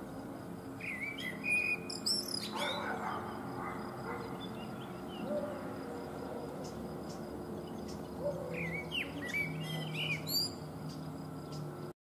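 Male Eurasian blackbird singing: two song phrases several seconds apart, each a short fluty warble that ends in a high, squeaky twitter.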